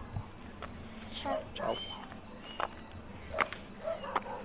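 Steady high-pitched chirping of night insects, with a few short sharp sounds and faint voices scattered through it.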